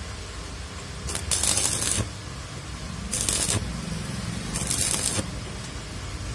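Electric arc welding on a motor rotor shaft, building up its worn bearing seat with weld metal: three short bursts of crackling arc, the first about a second long and the next two about half a second each, over a steady low hum.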